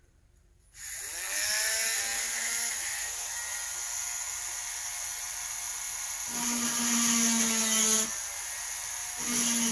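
Cordless Dremel Micro rotary tool with a small diamond ball bit switched on about a second in, spinning up with a rising whine and then running at high speed. Its tone shifts and strengthens twice later on.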